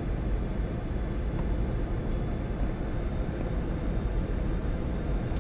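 Steady, deep rushing noise on a Boeing 747 flight deck on final approach, made up of airflow and engine noise with the landing gear down.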